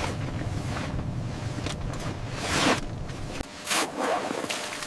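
Low wind rumble with several brief whooshing swishes, like gusts or rustling gear. The rumble cuts off suddenly about three and a half seconds in.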